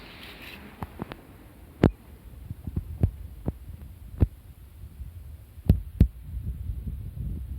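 A series of irregular sharp knocks and clicks, about a dozen, over a low rumble; the loudest comes about two seconds in, and two strong ones land close together near the end.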